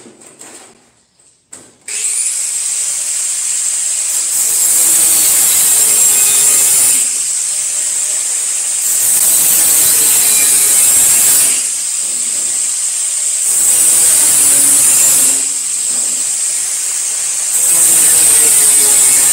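Angle grinder with a cut-off disc cutting thin sheet steel: a few handling clicks, then the grinder starts about two seconds in and runs with a high, steady whine. It grows louder and eases off again every few seconds as the disc bites into the sheet.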